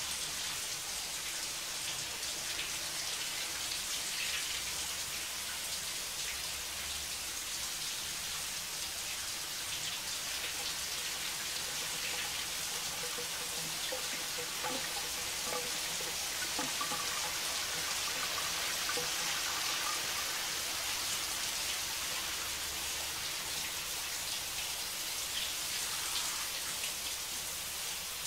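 Shower running steadily, a constant hiss of water spraying onto the bathtub floor and swirling down the drain.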